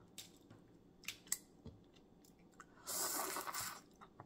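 Close-miked eating of boiled crawfish: soft clicks and snaps of shell and chewing, with one louder, longer noise of under a second about three seconds in.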